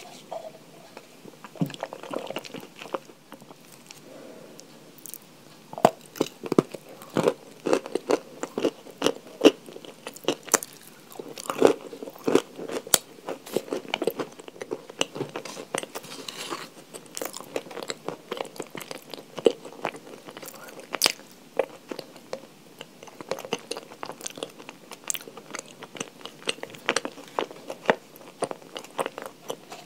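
Edible chalk being bitten and chewed close to the microphone: a run of sharp, irregular crunches, sparse at first and coming thick and fast from about six seconds in.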